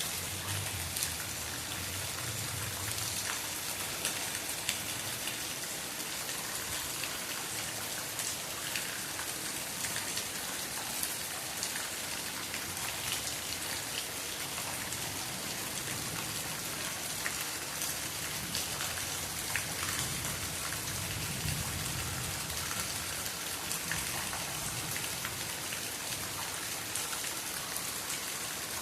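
Steady rain falling, a continuous hiss with many separate drops ticking as they land. A low rumble comes up near the start and again past the middle.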